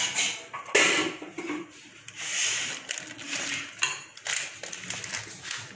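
A metal spoon rubbing and scraping powdered spice mix over a raw fish fillet on a ceramic plate, in uneven strokes with a few sharp clicks of spoon against plate.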